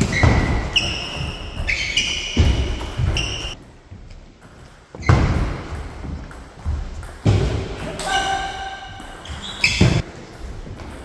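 Table tennis rally: the ball knocks sharply off the bats and the table every half second or so, with short high squeaks from shoes on the hall floor. Play pauses briefly about four seconds in, then a new rally starts.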